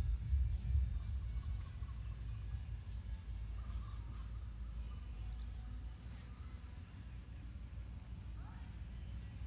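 An insect chirping in short, high pulses, evenly spaced about every 0.7 s, over a steady low rumble, with a faint bird call about four seconds in.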